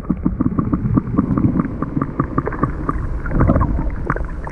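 Muffled underwater sound from a camera held below the lake surface: water sloshing and bubbling around it, with a quick run of small knocks and clicks.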